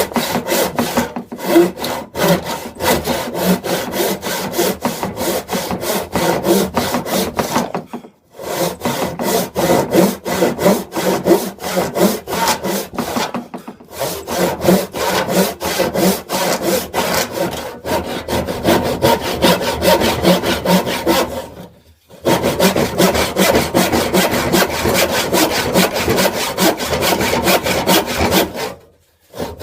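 Handsaw cutting through wood in steady back-and-forth strokes, stopping briefly about four times.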